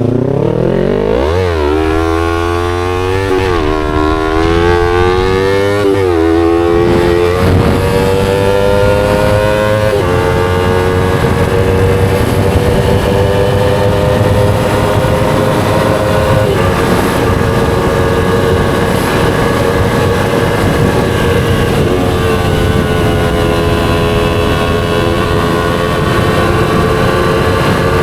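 Yamaha R25 parallel-twin motorcycle with an SC-Project exhaust accelerating hard, its note climbing and dropping back through several quick upshifts in the first ten seconds. It then holds a steady high-revving cruise.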